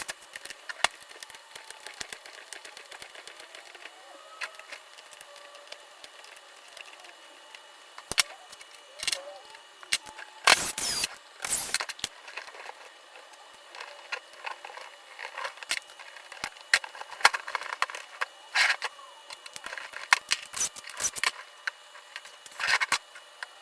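Hand tools and small metal and plastic parts clicking and clinking as the rear assembly of a Losi 5ive-T 1/5-scale petrol RC car is taken apart: scattered sharp clicks and taps, with two longer, louder scraping bursts about halfway through.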